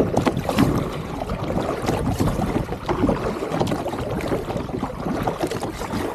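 Kayak paddle strokes splashing and gurgling through the water as the kayak is paddled hard into a headwind, with wind noise on the microphone.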